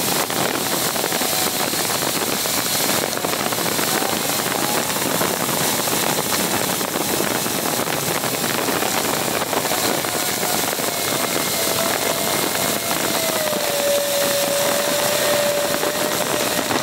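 Steady road and wind noise from a Fiat driving at speed, heard from a camera mounted under the car: tyres on grooved concrete and wind rushing over the microphone. A faint whine runs through it and dips in pitch about two-thirds of the way in.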